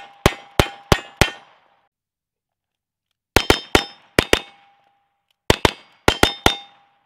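Single-action revolver fired in three quick strings of five shots, each shot followed by a ringing metallic clang.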